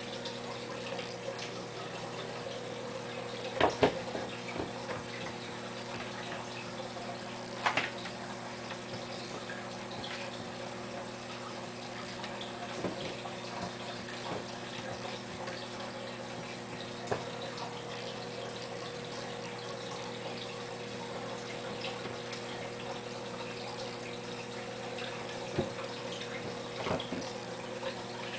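A kitten batting a small toy ball across a tiled floor: a few sharp taps and clatters, the loudest about four and eight seconds in, over a steady low hum and hiss.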